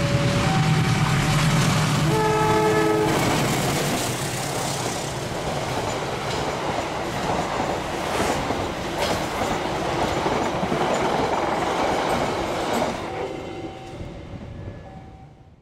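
Diesel-hauled passenger train passing close by: the locomotive's engine hum, then one horn blast of several notes at once lasting about a second, a couple of seconds in. After that comes a dense rumble and clack of the coaches' wheels over the rail joints, fading near the end. An alternating two-note signal sounds at the start and again near the end.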